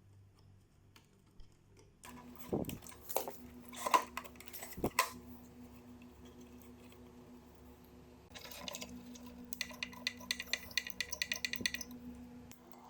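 Hand-tool and handling noise from dismantling a plastic-cased powered speaker monitor: a few sharp knocks and clatter, then a fast run of small clicks near the end, as from a screwdriver working the screws.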